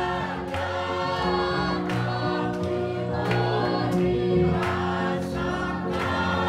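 A group of voices singing together in harmony, with strummed guitar and ukulele.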